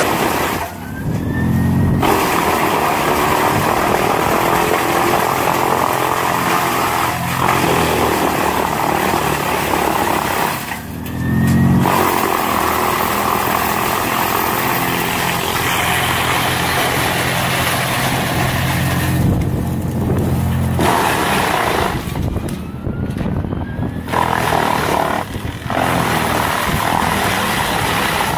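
Tractor-driven wood chipper grinding a tree trunk fed in by its crane: a loud, continuous chipping and grinding over the heavy engine. A few times the chipping briefly drops out and the engine note rises.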